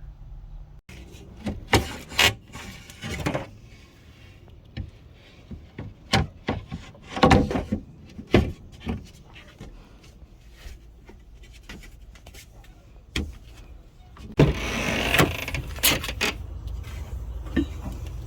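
Gear being handled and shifted in a vehicle's storage area: scattered knocks and rustling, with a longer scraping slide about two-thirds of the way through.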